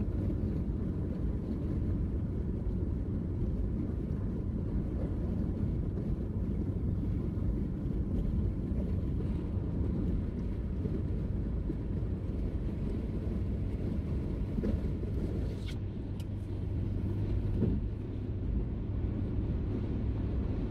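Steady road and engine noise inside a moving car's cabin at highway speed: an even low rumble.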